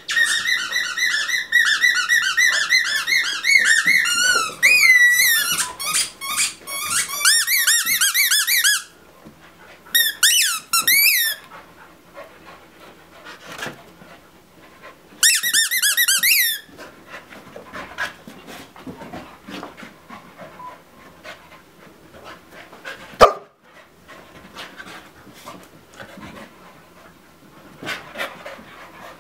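Rubber squeaky toy squeezed rapidly over and over, in a long run lasting about nine seconds, then two shorter runs around ten and fifteen seconds in. A single short sharp sound comes later, after the squeaking has stopped.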